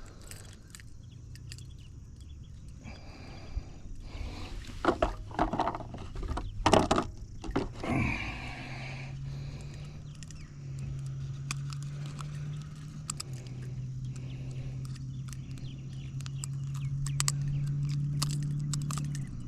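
Knocks and clicks of handling on a boat, then a steady low electric-motor hum that shifts pitch in small steps several times.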